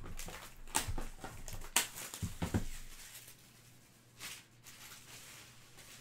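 A trading card box being handled and set down on a tabletop: a quick series of sharp clicks and taps of cardboard and plastic in the first three seconds, then one brief brushing sound about four seconds in.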